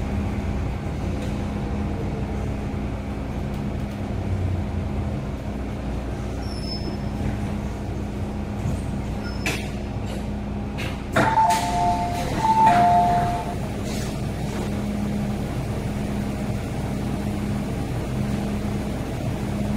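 Inside an MTR M-train car as it slows to a stop: a steady hum with low running rumble that fades, a few sharp clicks and hisses, then the door chime, two high-low tone pairs about eleven seconds in, as the doors open.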